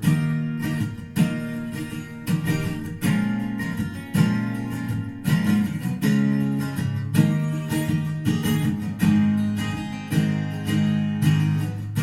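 Recorded music played through Fyne Audio F700 loudspeakers: an instrumental passage of strummed acoustic guitar chords, with a strong strum about once a second.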